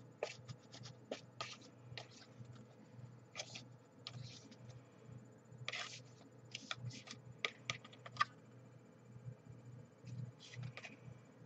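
Small plastic spoon scraping and tapping in a plastic candy tray while stirring stiffened chocolate sauce: irregular short scratches and clicks.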